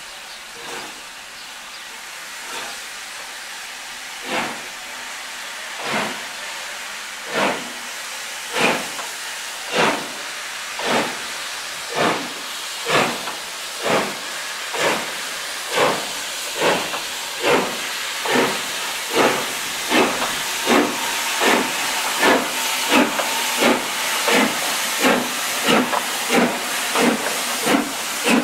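Southern Railway S15 class 4-6-0 No. 825, a two-cylinder steam locomotive, starting its train away. The exhaust chuffs begin slow, about one every one and a half seconds, and quicken to about two a second as it gathers speed, growing louder as it draws close. Underneath is a steady hiss of steam escaping around the cylinders.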